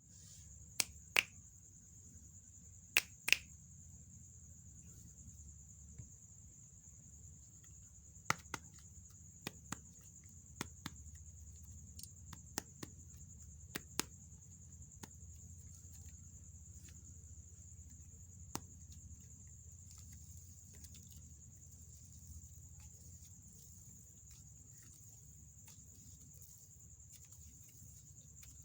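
Scattered sharp clicks and snaps from hands working slime-making materials. The loudest come in a quick cluster in the first few seconds and more follow sparsely until about two-thirds of the way in. They sit over a steady low hum and a faint high whine.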